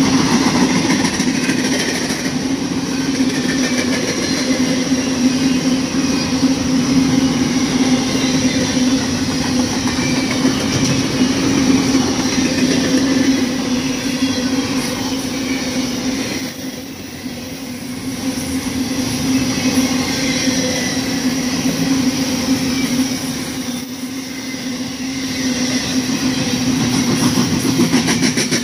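Freight train of intermodal well cars rolling past: a steady rumble of steel wheels on the rails, with a constant ringing tone running through it. The sound eases briefly about two-thirds of the way in and again near the end.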